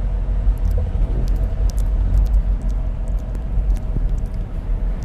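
Close-miked ASMR sounds: a steady low rumble on the microphone with many faint, sharp clicks scattered through it.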